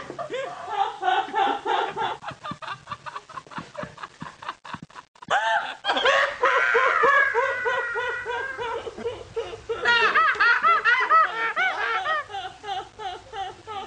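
A woman laughing hard in rapid, breathless bursts. After a short break about five seconds in, another woman breaks into loud, high-pitched, uncontrollable laughter.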